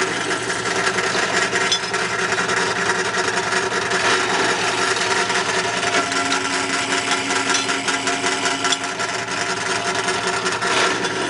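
Benchtop drill press motor running steadily while its bit drills a clearance hole through a brass harmonica reed plate. An extra steady tone joins for a few seconds in the middle.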